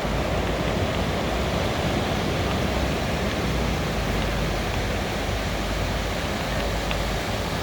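Ocean waves washing onto a beach: a steady rush of surf with a low rumble underneath, no single breaker standing out.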